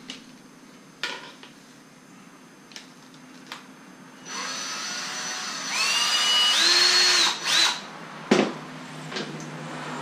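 Cordless drill spinning up and running for about three seconds, its whine rising in pitch, boring a hole through a rubber rod-holder tab into PVC pipe, then a brief second burst. Light handling clicks come before it and a sharp click after.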